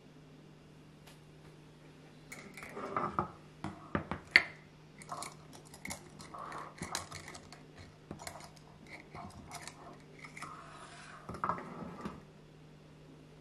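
Measuring cups being handled and set down on a kitchen countertop: a run of light clacks, taps and rustles, with one sharp click about four seconds in. A faint steady hum lies underneath.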